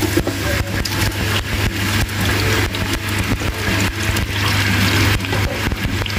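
Sliced onions crackling and sizzling as they are scraped off a plastic cutting board into hot oil in a stainless steel pot, over a steady low hum.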